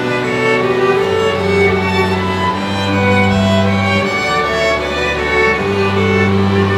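Instrumental background music: sustained low notes that change every second or two under a slow melody of higher notes.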